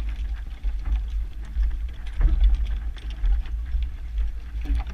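Uneven low rumble of wind on the microphone, with scattered light clicks and a couple of knocks from the rowing shell and the rowers' gear as the crew sits alongside the dock.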